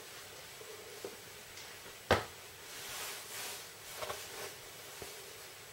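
A single sharp click about two seconds in, over quiet room tone, followed by a few faint soft noises.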